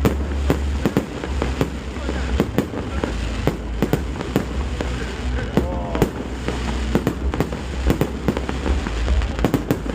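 Aerial fireworks going off in quick succession: a dense run of sharp bangs and crackles, several a second, over a continuous low boom.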